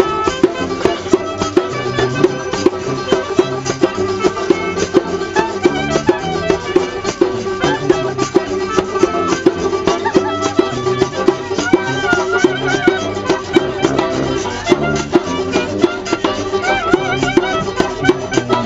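Folk band playing a steady, rhythmic tune on banjo, djembe hand drum, washboard and a brass bass horn, with a held drone note and a walking bass line under even percussion strokes.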